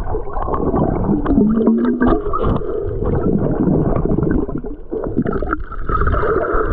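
Muffled underwater sound picked up by a camera held below the surface: water churning and gurgling around the housing, with scattered clicks and a brief low wavering tone about a second and a half in.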